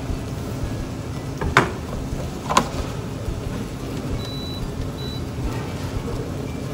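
Onions, peppers and tomatoes sizzling steadily in a sauté pan, with two sharp knocks of a chef's knife on a plastic cutting board, about a second and a half in and again a second later.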